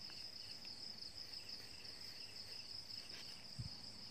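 Night insects trilling steadily and faintly, with a second, lower call pulsing in short repeated chirps. A soft low thump about three and a half seconds in.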